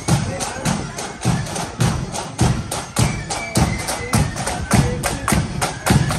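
Marching band playing a march. A bass drum beats about twice a second under sharp snare-drum strokes, with a thin, high melody over the top.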